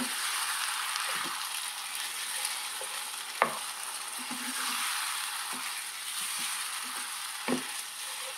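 Chicken and tomato-purée masala sizzling in a non-stick pan on a gas hob while a wooden spatula stirs it, with a steady hiss and two sharper knocks of the spatula on the pan, one a few seconds in and one near the end.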